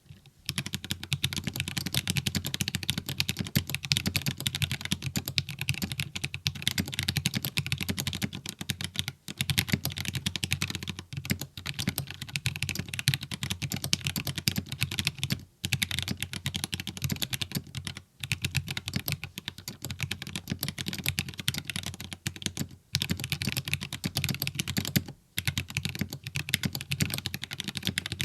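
Fast continuous typing on a mechanical keyboard with Gateron Brown tactile switches, a dense run of keystroke clicks and clacks broken by a few brief pauses.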